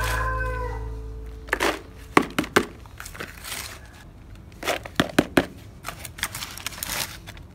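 Background music fading out in the first second, followed by scattered sharp clicks, crinkles and light knocks of something being handled.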